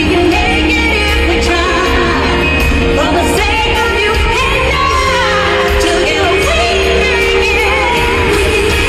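Live pop music at an arena concert heard from the audience: women singing into microphones over a loud backing band with a steady heavy bass, the whole mix echoing in the large hall.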